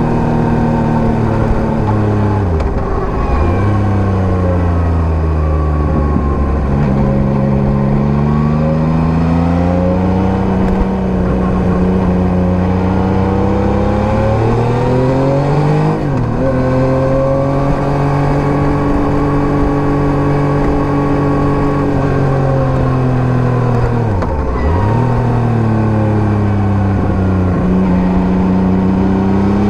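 Yamaha MT-09 (gen 3) 890 cc inline-three engine running through an SC-Project STR-1 aftermarket exhaust while riding. The engine note climbs and falls with the throttle, dropping sharply and picking up again three times: about three seconds in, about sixteen seconds in and about twenty-four seconds in.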